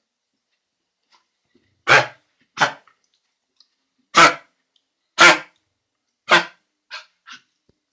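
Dog's honking kennel cough: five loud, short, harsh honks spaced about a second apart starting about two seconds in, then two fainter ones near the end.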